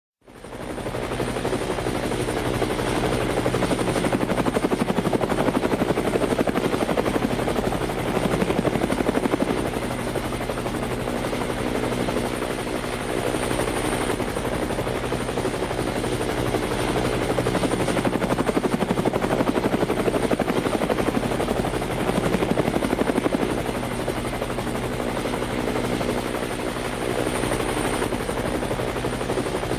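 Helicopter in flight: a fast, steady rotor beat over a constant engine hum. It fades in at the very start, then swells and eases gently.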